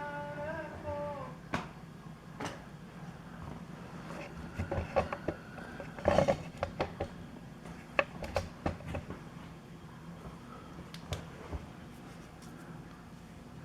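Scattered clicks and knocks of hands handling tools, the workpiece and the camera mount, over a faint steady low hum; the loudest knock comes about six seconds in. A held tone with overtones trails off in the first second.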